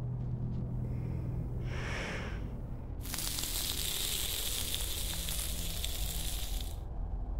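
Meat sizzling as it roasts on a stick: a steady hiss that starts suddenly about three seconds in and cuts off shortly before the end. Before it there is a low steady hum and a brief swelling whoosh.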